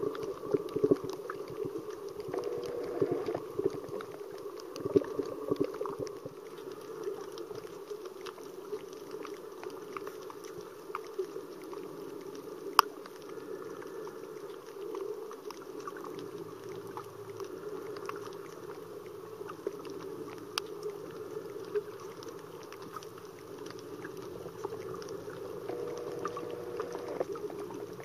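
Muffled underwater ambience heard through a waterproof camera housing: a steady low rushing hum with scattered sharp clicks and crackles, the strongest about a third and two thirds of the way through.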